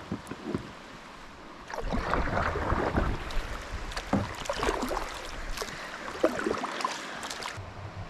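A kayak running a river rapid: rushing, splashing water with scattered knocks and clicks. It starts about two seconds in and cuts off suddenly near the end.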